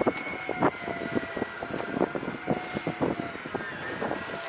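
Outboard motors of a center-console fishing boat running, with a steady whine, while waves knock irregularly against the hull in rough seas.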